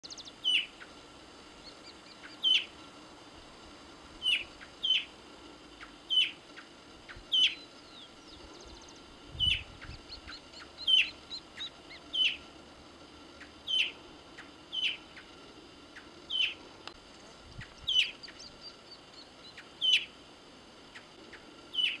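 Andean tinamou giving short, sharp, downward-slurred whistles, repeated about fifteen times at uneven gaps of one to two seconds, with fainter notes in between.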